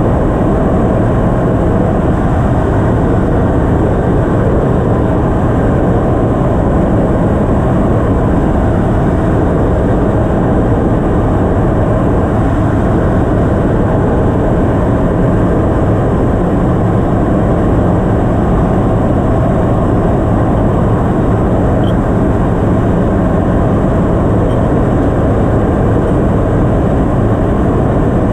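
Ship's engine-room machinery running: a loud, unbroken drone with a few faint steady tones over it.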